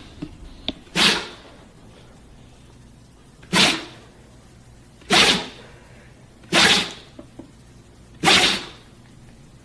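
A husky sneezing over and over: five short, sharp sneezes about a second and a half apart.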